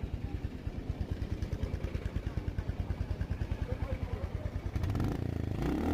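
Royal Enfield Hunter 350's single-cylinder engine idling through an aftermarket Red Rooster silencer, a steady low thudding exhaust beat; about five seconds in the engine note picks up and gets louder.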